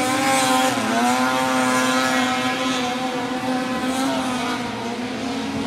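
High-revving engines of several racing craft speeding across the water, their pitch wavering up and down as they pass, over a steady lower engine drone.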